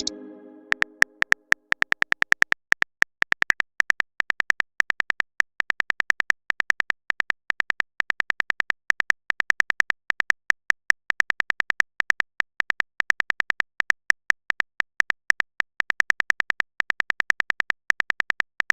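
Rapid, irregular taps of a simulated phone-keyboard typing sound from a chat-story app, several clicks a second in bursts with short gaps. A ringing message chime dies away in the first second or so.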